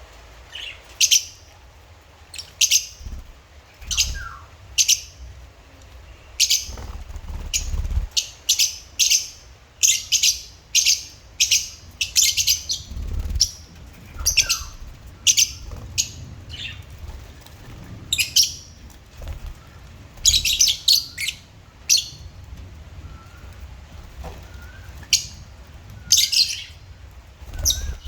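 Lovebirds chirping: short, shrill, high-pitched calls in irregular bursts, coming thick and fast through the middle and thinning out towards the end.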